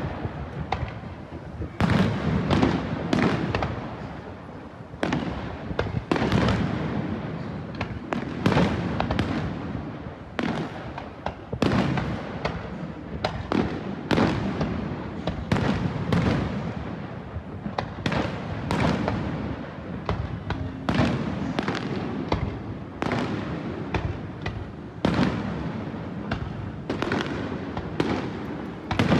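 Beach fireworks display: aerial shells bursting in a steady run of sharp bangs, about one a second, each trailing off before the next.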